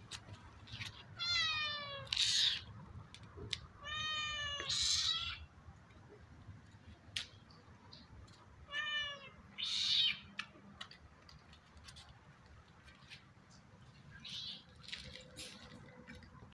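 A kitten meowing three times, short pitched calls each followed by a brief noisy burst.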